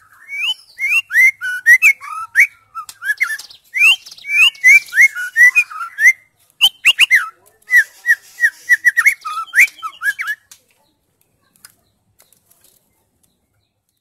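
White-rumped shama singing a fast, varied run of whistled notes, quick glides and sharp chirps. The song stops about three quarters of the way through.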